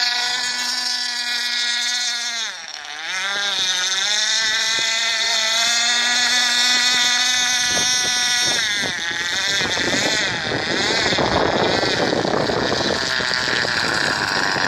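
Radio-controlled F1 racing boat's KB 46 model outboard engine running at full throttle, a high steady whine. The pitch drops about two and a half seconds in and climbs back, then wavers up and down in the second half.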